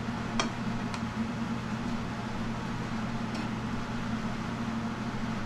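A steady low hum, with a few light clinks of a glass baking dish going onto the oven rack, two close together about half a second and a second in and a fainter one later.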